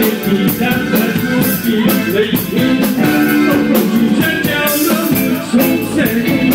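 Live Khmer party band playing an upbeat song: a singer over guitar, keyboard and a steady beat.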